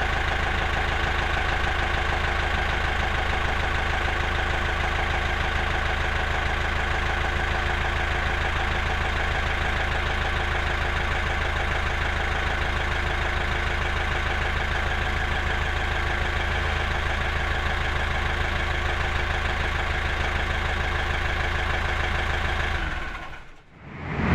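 A steady engine-like idling drone that holds unchanged, then fades out quickly near the end.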